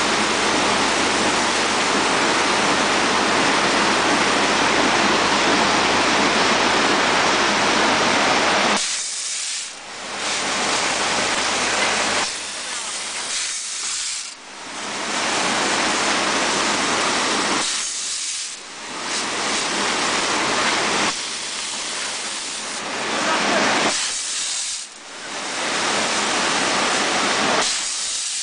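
Screw weighing and packaging machine running with a loud, steady hiss. About nine seconds in, the hiss starts to drop away briefly and return, about every four to five seconds.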